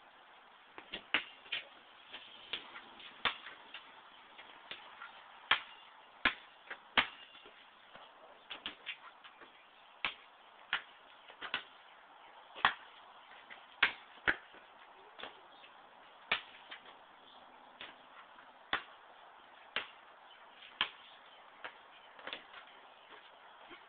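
A basketball bouncing: sharp single knocks at irregular intervals, about one every second or so.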